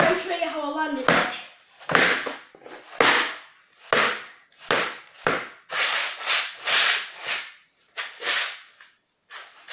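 A bare wooden skateboard deck, used without trucks or wheels, sliding and scraping across a laminate floor as it is pushed and turned underfoot: a run of short swishing scrapes, roughly one or two a second, with a short quiet gap near the end.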